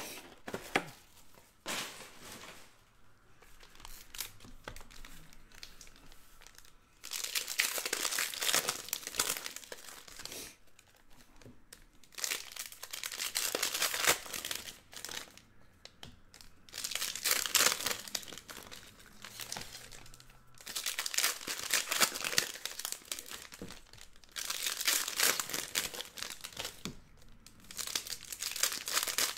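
Foil trading-card pack wrappers being torn open and crinkled by hand. The sound comes in repeated bursts every few seconds, with quieter handling noise before the first burst about seven seconds in.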